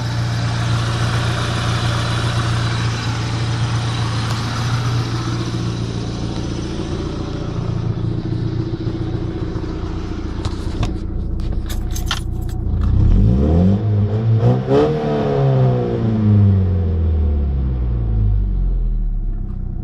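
Ford Sierra engine, with a newly changed LPG mixer, idling steadily. A few sharp clicks about halfway through, then the engine is revved once, rising and falling back over several seconds, and it picks up cleanly.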